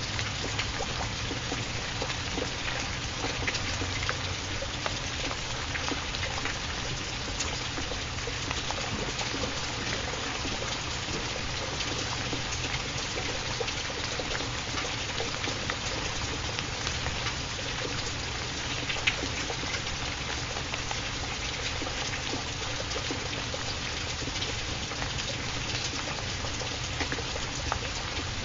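Steady rain sound: an even hiss scattered with many small drop ticks, holding level without a break.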